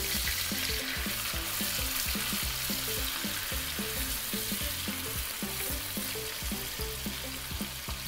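Cashews frying in butter, olive oil and orange juice in a nonstick frying pan, sizzling steadily while a silicone spatula stirs them round the pan.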